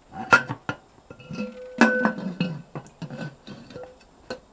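Aluminium pressure canner lid clinking and scraping against the pot's rim as it is turned into place, lining up with the notch: a string of sharp metal knocks, with a ringing tone held for about a second and a half near the middle.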